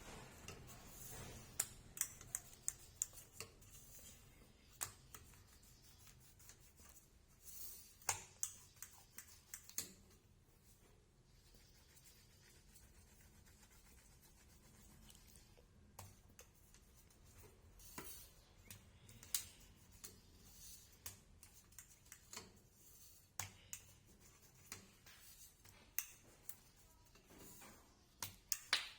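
Scattered light clicks and taps at irregular intervals, more of them at the start and again in the second half, with quiet room tone between.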